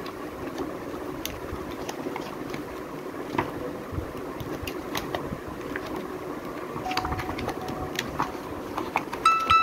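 Paper pages and lift-up flaps of a children's picture book being handled and turned, giving scattered light clicks and rustles over a steady background hum. A short electronic tune starts just at the end.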